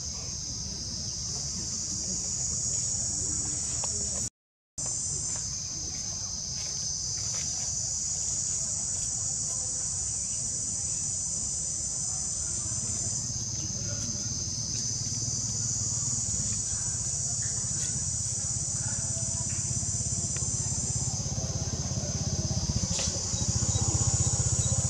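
Steady high-pitched insect chorus that shifts slightly in pitch now and then, over a low rumble, cutting out completely for a moment about four and a half seconds in.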